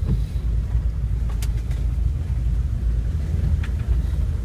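Road and engine noise inside a moving van's cabin on a rough rural road: a steady low rumble with a couple of sharp knocks or rattles. It stops abruptly near the end.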